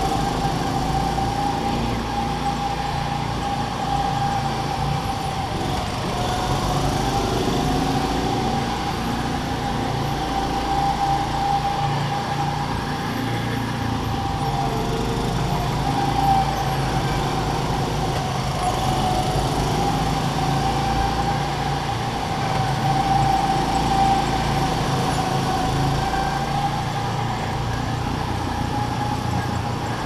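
Go-kart engines running steadily at track speed, heard from aboard a moving kart, with a steady whine over the engine sound.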